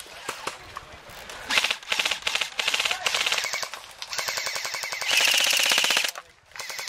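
Airsoft electric rifles firing full-auto, fast strings of sharp clicks from several guns overlapping. The firing starts about a second and a half in, is heaviest about five seconds in, and breaks off briefly near the end before starting again.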